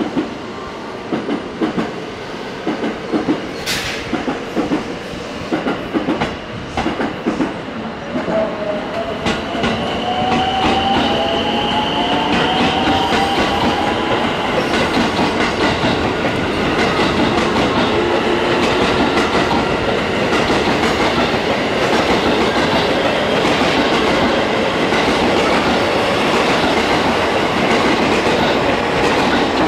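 Electric commuter train accelerating past the platform. Its wheels click over the rail joints, and about eight seconds in a motor whine starts rising in pitch. After that the cars run by with a steady, louder clatter of wheels.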